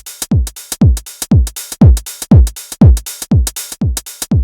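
Electronic dance music with a drum-machine kick, about two deep thuds a second, and lighter hi-hat hits between them.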